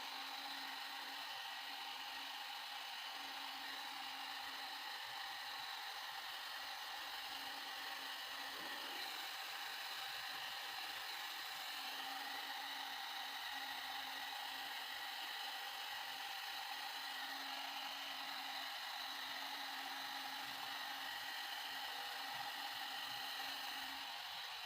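Handheld electric hair dryer running steadily as hair is blow-dried: a constant rush of air over a steady motor whine.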